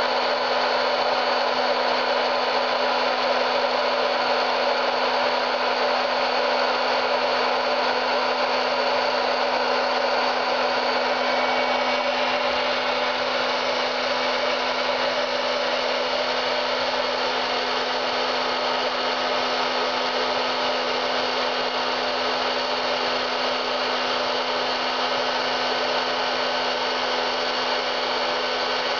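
Hot-air popcorn maker running, its fan blowing with a steady whir and hum.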